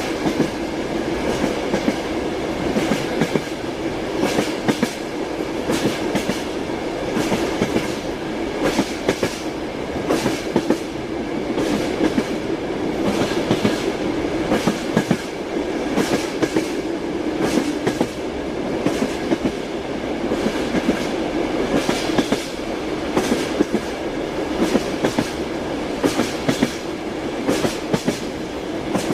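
Train wheels clicking over rail joints in a steady repeating rhythm, over the continuous rumble of a moving train.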